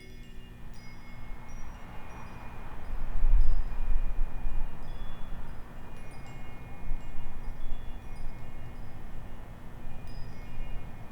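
Wind chimes tinkling, scattered short high notes, over a steady rushing noise with a low rumble that swells about three seconds in.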